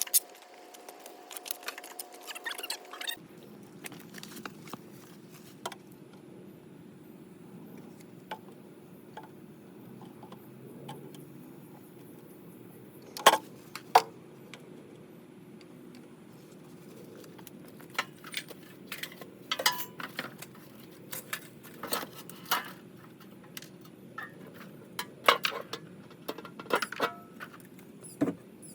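Scattered metallic clinks and knocks of hardware and tools being handled, with two louder clanks about halfway through, over a steady low hum that begins about three seconds in.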